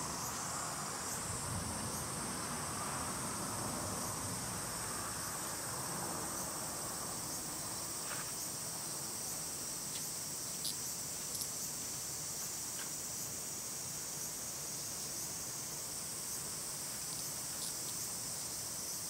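A steady, high-pitched chorus of insects droning without a break, with a few faint ticks here and there.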